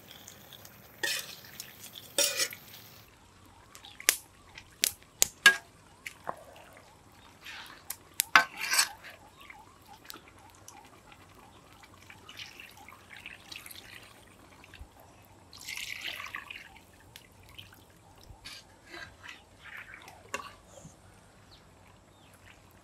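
Chicken gizzards and liver in a thick masala being stirred in a kadai, with scattered sharp clicks and scrapes of the spatula against the pan. Partway through, water is poured into the pan and it sloshes and drips.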